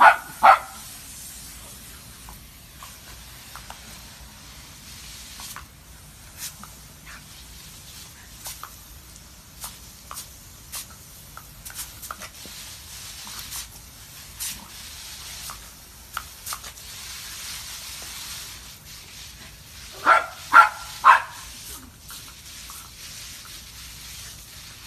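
Steady hiss of a garden hose spraying water, with scattered small clicks. A Jack Russell terrier barks twice at the start and three quick times about twenty seconds in.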